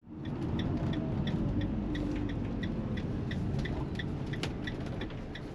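Motorhome engine idling as a low steady rumble, heard inside the cab, with the indicator clicking about three times a second. One sharper click sounds about four and a half seconds in.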